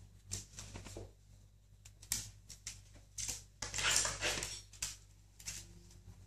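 A cat on its back on a tiled floor grappling with a hand: scattered light clicks and scuffs of claws and fur, with a longer rustling scuffle about four seconds in.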